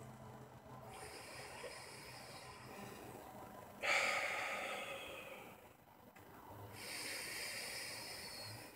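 A man taking slow, deep breaths close to the microphone: two long breaths, the first starting abruptly about four seconds in and fading over two seconds, the second swelling more gradually near the end.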